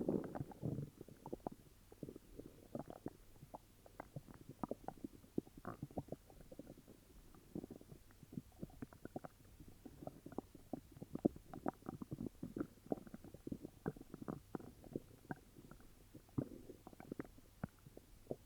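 Upset stomach growling and gurgling: a dense, irregular run of small pops and bubbling gurgles, with a louder rumble in the first second.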